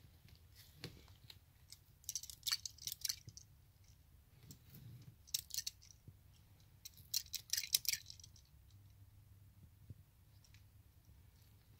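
Three bursts of crinkly rustling and light clicks from gloved hands handling and turning a metal carburettor body, over a faint low hum.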